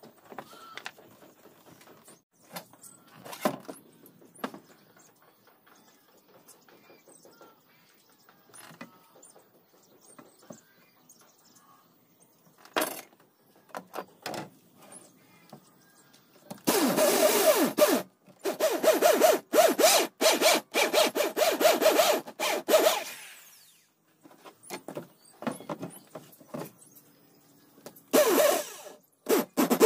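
Light clicks and knocks of wooden frame pieces being handled, then a handheld electric drill boring into plywood in stuttering bursts for several seconds a little past halfway, and again near the end.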